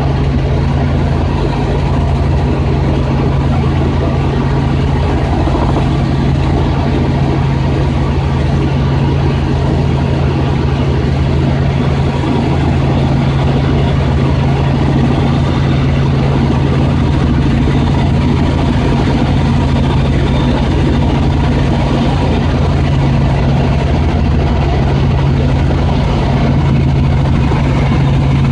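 Robinson R44 helicopter in cruise flight, heard from inside the cabin: the steady, loud drone of its six-cylinder Lycoming piston engine and rotors, an even low hum with airflow noise over it.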